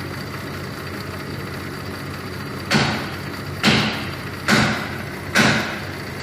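Cadillac SRX 3.6 V6 idling with a misfire logged on cylinders 1 and 3, where an intermittent injector is suspected. It runs steadily at first; from about halfway through, four sudden loud rushes of noise come about once a second.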